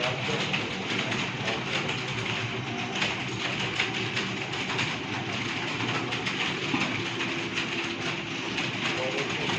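Dense, steady clatter of many computer keyboards being typed on at once, as in a room full of typists.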